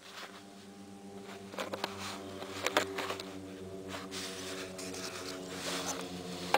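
A steady low buzzing hum, with scattered light clicks and rustles from handling wiring connectors.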